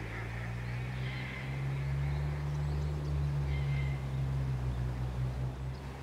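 A low, steady motor hum, swelling to its loudest about halfway through and easing toward the end, with a few faint bird calls above it.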